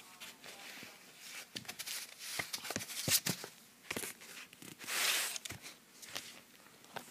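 Handling noise as a stretched canvas and the phone are moved and turned over: an irregular run of clicks, taps and knocks with bursts of rustling, the loudest rustle about five seconds in.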